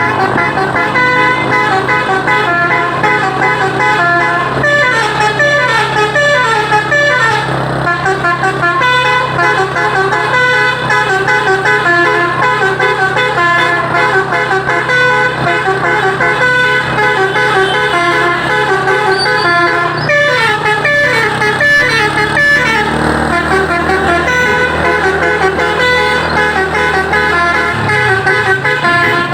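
Truck's Basuri multi-tone telolet horn playing a melody of quick stepping notes, with fast runs of falling notes, over a steady low drone.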